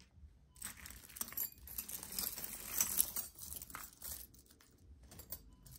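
A hand rummaging through a heap of costume jewelry beside a plastic bag: metal chains, rings and bangles clink and rattle against each other, mixed with plastic crinkling. It is busiest from just under a second in to about four seconds, then settles to a few scattered clicks.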